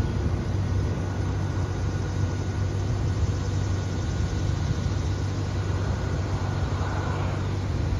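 Distant crop-dusting airplane's engine droning steadily as a low hum, the plane far off over the corn field.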